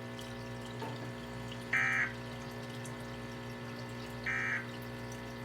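Two short bursts of Emergency Alert System digital data tones, about two and a half seconds apart: the end-of-message code that closes a NOAA Weather Radio Required Weekly Test. Under them runs a steady low hum and hiss of radio reception.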